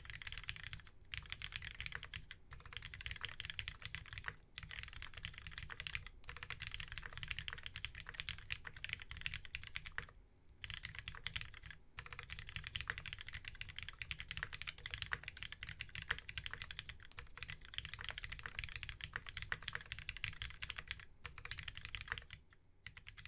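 Steady, fast typing on a Keycult No.2 custom mechanical keyboard with a brass plate, lubed Cherry MX Black linear switches and GMK keycaps: a dense run of keystrokes broken by a few brief pauses, the longest about halfway through.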